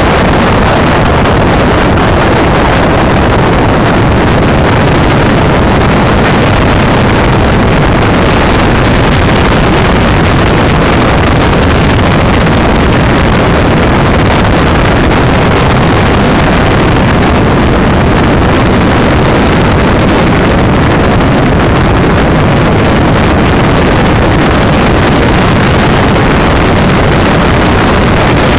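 Wind buffeting an onboard camera's microphone, mixed with tyre and chassis rumble from a small battery-electric Greenpower race car running at speed. It is a loud, steady rushing noise with no engine note.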